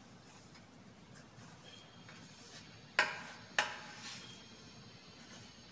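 A small tool clinking against a steel paint tray while paint is scraped out: two sharp metallic clinks about half a second apart, a fainter tap just after.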